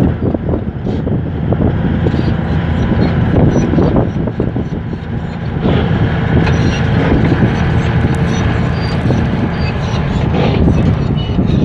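Komatsu D155A crawler bulldozer's diesel engine running steadily under load, with repeated clanks and rattles from its tracks as it pushes sand along a ridge.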